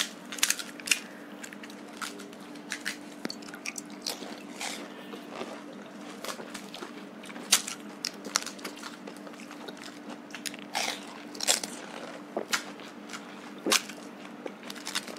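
Crisp fuchka (pani puri) shells cracking and crunching as they are broken open and bitten, in short, irregular crunches, with chewing between them.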